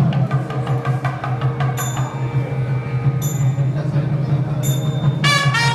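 South Indian temple music: a low steady drone holds throughout, with a few ringing metallic strikes of small cymbals about two, three and four and a half seconds in. Near the end the nagaswaram, the large South Indian double-reed oboe, comes in with a bright held tone.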